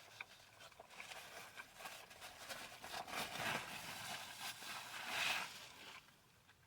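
Faint rustling and scraping handling noises with scattered small clicks, a little louder around the middle and stopping about six seconds in.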